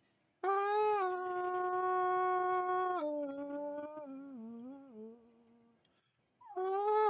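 A singing voice holding wordless notes. The first long note is steady, then the voice drops to lower notes that waver and step down. After a short pause, another long note begins near the end.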